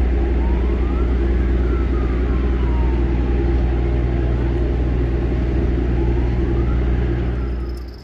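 A steady, loud low rumble like a large engine running, with a siren wailing slowly up and down twice over it.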